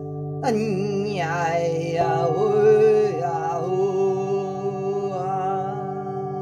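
Singing bowls ringing in a steady, sustained drone, with a voice joining about half a second in to sing a wavering, wordless light-language chant over them. The voice fades out near the end while the bowls ring on.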